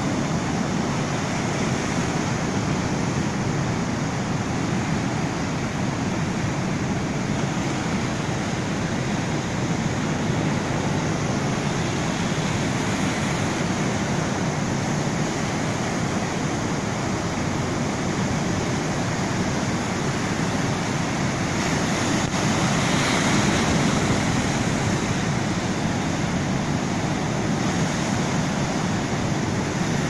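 Heavy ocean surf: large waves breaking and white water rushing over the shallows as one continuous rush of noise, swelling louder about two-thirds of the way through.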